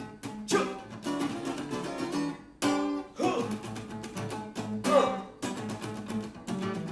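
Acoustic guitar being strummed, with a hard accented stroke about every two seconds over the steady playing between.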